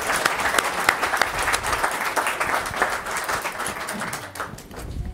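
Audience applauding in a small theatre, many hands clapping together, dying away over the last second or so.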